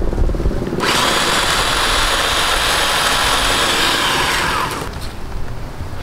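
Electric pole saw running for about four seconds. Its motor and chain start abruptly about a second in, run at a steady high speed, then wind down with a falling pitch.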